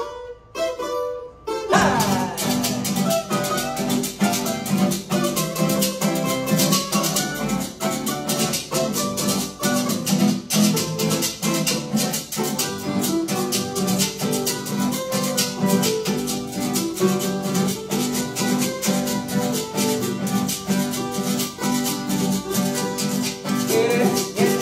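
Instrumental introduction of a carranga song on strummed and plucked guitar-family strings, with a steady rattling percussion keeping a quick rhythm. It starts about two seconds in.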